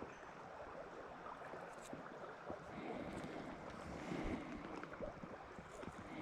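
River water rushing steadily, with scattered small clicks over it.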